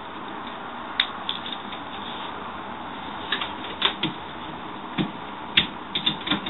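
Irregular clicks and light knocks of a laptop power adapter and its cable being handled and unwrapped, over a steady hiss.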